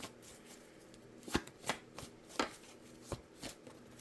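A tarot deck being shuffled by hand: soft card noise with several sharp snaps of the cards at uneven intervals.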